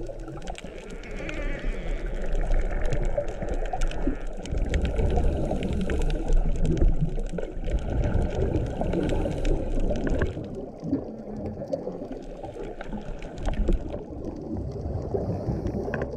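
Scuba regulator breathing recorded underwater: exhaled air bubbling and gurgling out of the regulator, with crackling bubble noise, swelling louder for several seconds and easing off later.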